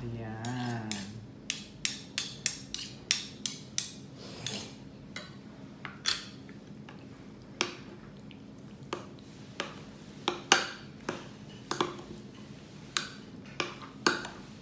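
Metal fork clinking and scraping against a glass container while mashing and stirring flaked tuna with mayonnaise. A quick run of clinks in the first few seconds, then irregular ones.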